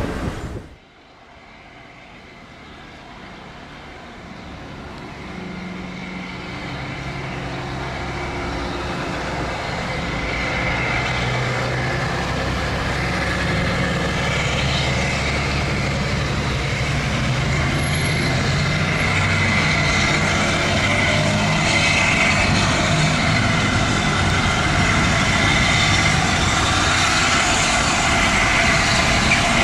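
A4 Pacific steam locomotive 60007 Sir Nigel Gresley, with Class 47 diesel 47810 also on the train, approaching at the head of a charter train. The sound of the locomotive and its train grows steadily louder as it comes nearer.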